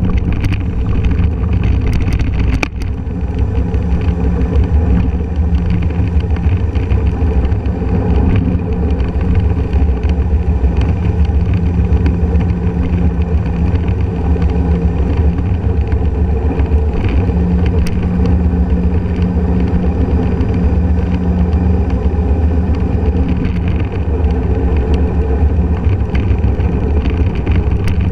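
Honda scooter's engine running steadily while riding along, with low rumble from wind and road on a microphone mounted on the scooter. A few brief clicks near the start.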